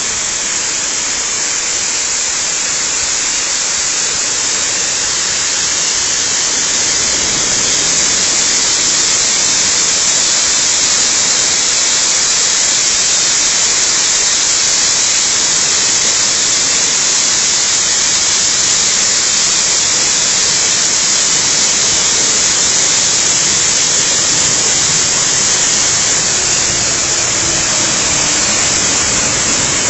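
Waterfall pouring steadily: a loud, even rush of falling water, heaviest in the hiss.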